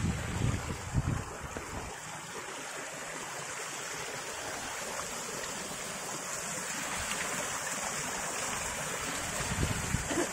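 Water of a creek waterfall running down rock: a steady rush that grows a little louder towards the end. Low buffeting of wind on the microphone in the first two seconds.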